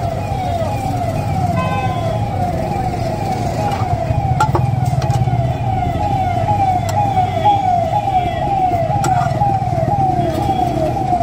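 An electronic siren-like alarm sounds a short falling tone over and over, about three times a second, over a low rumble, with a few sharp clicks.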